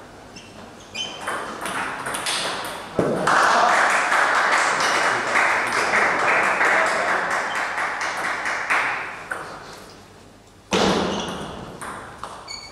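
Table tennis ball clicking sharply off bats and the table in a rally. From about three seconds in, a loud rush of noise runs for several seconds and fades, then another sudden burst comes near the end.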